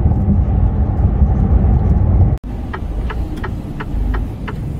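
Truck cab noise while driving: a steady low engine and road rumble. It cuts off abruptly about halfway, and after that a quieter engine runs with a regular light clicking, about two to three clicks a second.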